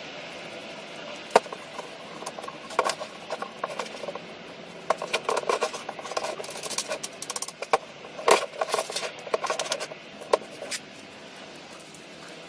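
Irregular clicks, knocks and short rattling clatter of small hard parts being handled, with a sharp knock about a second in and the busiest clatter between about five and nine seconds in.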